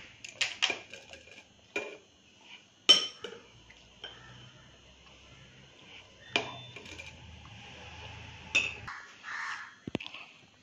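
Metal spoon clinking against bowls and a stainless-steel puttu mould while chocolate chips are spooned in: a handful of sharp, separate clinks, the loudest about three seconds in.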